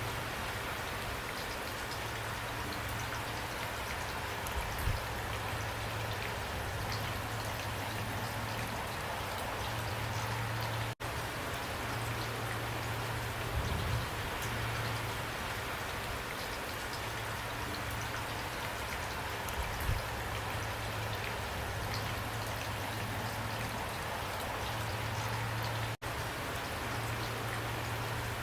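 Steady rain falling, a dense even hiss with scattered drop ticks and a low rumble that swells and fades. The sound cuts out for an instant twice.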